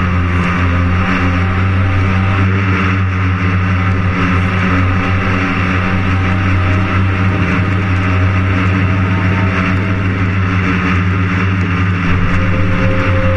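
Drone motors and propellers running steadily while it hovers: a loud, even low hum with an airy whir over it.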